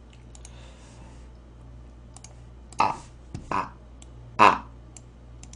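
Faint, scattered clicks from working a computer as the USB microphone's control panel is opened, over a low steady hum. Three short, louder bursts come close to the microphone between about three and four and a half seconds in.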